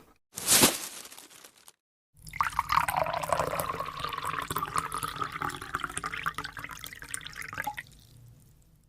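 A short noisy clatter, then a drink running into a glass for about five and a half seconds as it fills.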